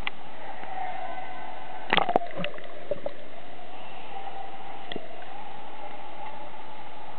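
Pool water lapping and sloshing against a camera held at the surface of an indoor swimming pool, over a steady background drone. There is a cluster of sharp splashes or knocks about two seconds in, and a few single ones after.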